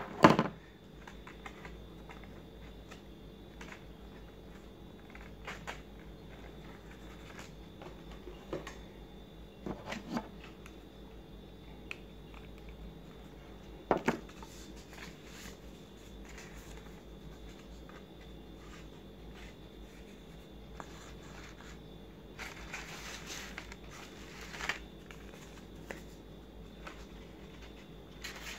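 Stiff card-paper petals being handled and pressed into place on a paper flower: scattered rustling and crinkling of paper with a few small knocks, a sharp knock at the very start and a longer rustle a little before the end.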